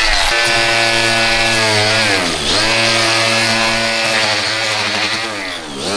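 Cordless angle grinder with a wire cup brush running at speed, scrubbing old coating off a fiberglass surface to get down to bare fiberglass before flashing. Its steady whine sags in pitch and recovers about two and a half seconds in, and drops again near the end.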